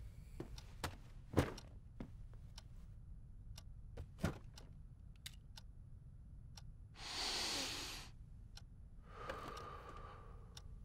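Sparse, quiet clock ticks, then a tired man's deep breath in and a long sigh out, the sign of his exhaustion.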